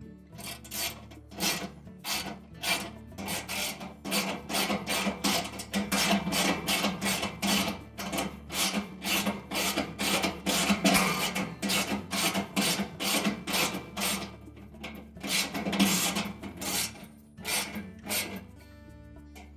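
Ratchet wrench with a socket being worked back and forth to tighten bolts, giving a short rasp of clicks on each stroke, about two a second, with a couple of brief pauses. It stops shortly before the end.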